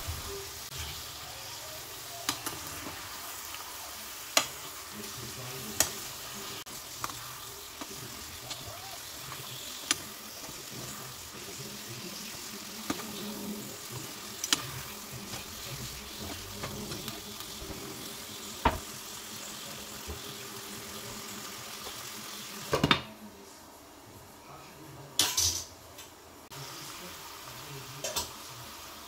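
Chicken pieces coated in spice powders sizzling in hot oil in a kadai, stirred with a steel spatula. The spatula knocks and scrapes against the pan every few seconds. The sizzle thins for a few seconds near the end.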